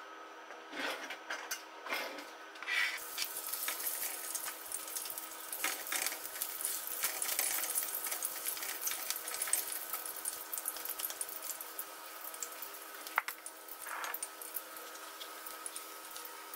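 Chopped garlic sizzling and crackling in hot oil in a wok. The sizzle starts about three seconds in and goes on steadily, with occasional scrapes and taps of a wooden spatula stirring it, over a steady hum.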